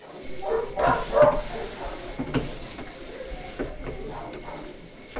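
Liquid poured from a jug into the canister of a barrel-mounted nozzle sprayer, hissing steadily. A dog barks a couple of times about a second in, the loudest sound, with a few light knocks later.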